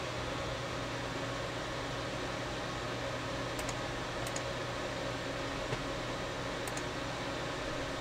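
Steady whir of a running desktop computer's cooling fans, with a low hum under it. A few faint mouse clicks come in the second half.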